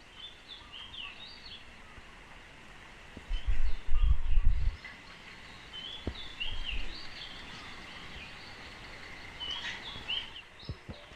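Birds calling, short repeated chirping notes, over rural outdoor ambience, with a loud low rumbling burst about three to five seconds in.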